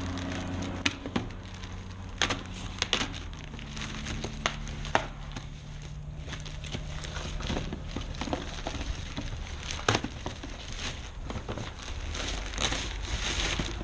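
A plastic mailer being slit open with a key and rustled, crinkling and crackling as a shoe box and its plastic wrapping are pulled out and the box lid is opened, with many sharp clicks and snaps scattered throughout.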